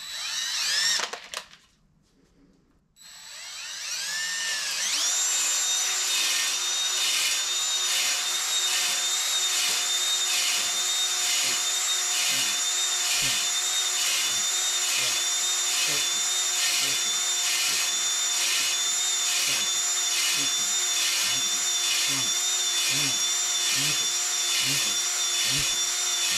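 A cordless drill spins a Flex-Hone ball hone inside an oiled engine cylinder, deglazing the bore. It whirs up briefly at the start and stops, then starts again about three seconds in and runs steadily with a high whine and a regular low pulse about every two-thirds of a second.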